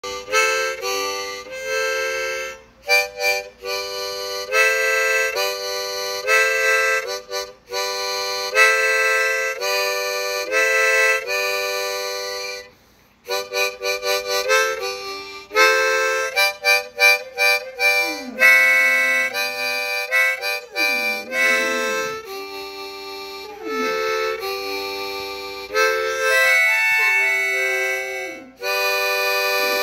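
Harmonica played in a string of short chords. From about two-thirds of the way through, a dog howls along several times in sliding, wavering notes beneath the chords.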